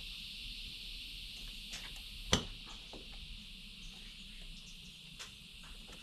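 Insects shrilling steadily in the background, with a few light clicks from wires being handled in a 12-volt box and one sharper knock a little over two seconds in.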